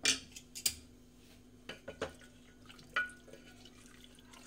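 Metal ladle knocking and scraping against the inside of an aluminium pressure cooker while the cooked macaroni is stirred: a handful of separate clanks, the loudest right at the start, one with a short metallic ring about three seconds in.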